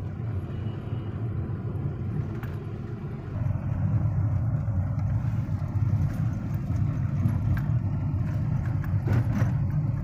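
Inside the cabin of a Hyundai Grand i10 Nios on the move, its freshly rebuilt engine and tyres making a steady low rumble that grows louder about a third of the way in.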